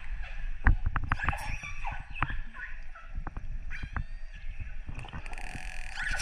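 Wild orcas heard underwater: a rapid, irregular series of sharp clicks, several with a low thud beneath them, the loudest about a second in. Faint rising and falling calls come through in the middle.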